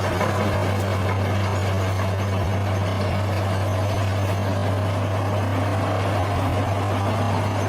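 Bulldozer's heavy diesel engine running steadily at an even low hum.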